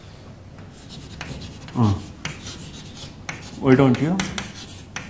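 Chalk scratching and rubbing on a chalkboard in a series of short strokes as words are written. A man's voice sounds briefly twice, about two seconds in and again near four seconds, louder than the chalk.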